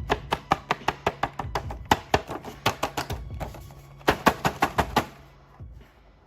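A rapid run of sharp clicks and taps, about five a second, typical of hard plastic toys being handled, dying away about five seconds in.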